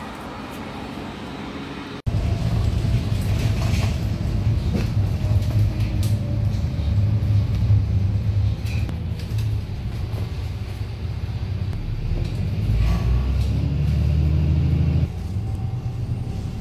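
Bus engine and road noise heard inside the bus, a steady low rumble. Near the end the engine note grows stronger for a couple of seconds under acceleration, then drops off suddenly.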